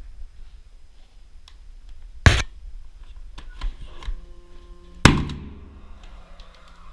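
Direct-fastening nail gun firing two shots about three seconds apart, driving fasteners through an aluminium wall profile; the second shot rings on, and a steady low hum continues after it.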